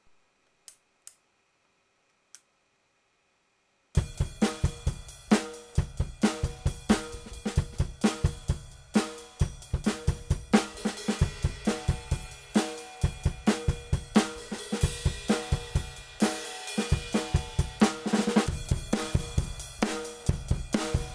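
A few sharp isolated ticks, then about four seconds in a full drum kit starts a steady groove of kick, snare, hi-hat and cymbals. The drums are heard through a home-built optical (vactrol) levelling compressor.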